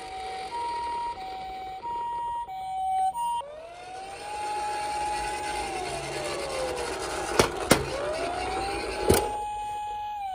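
Toy ambulance and police car sirens: first the Japanese ambulance's two-tone "pee-po" siren alternating high and low notes for about three seconds, then a police wail that rises, holds, falls and rises again. Three sharp clicks sound in the second half.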